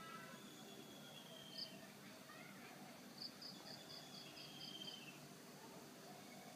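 Faint garden ambience of birds and insects: short high chirps, one alone about a second and a half in and a quick run of about eight around the middle, with faint gliding whistled calls.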